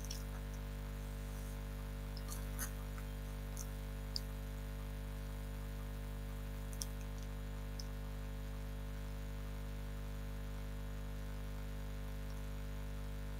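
Steady low electrical hum in the recording, with a few faint clicks scattered through the first eight seconds.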